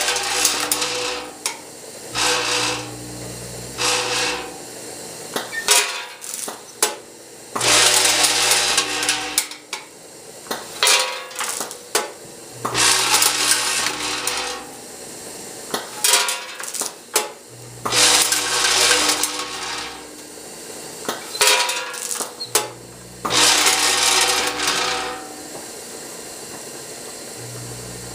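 Cascading scale weigh-filler cycling on wrapped throat drops: a vibratory hopper feeder hums in spells, and roughly every five seconds a weighed batch of wrapped drops pours out of a scale pan with a loud rattling rush lasting a second or two.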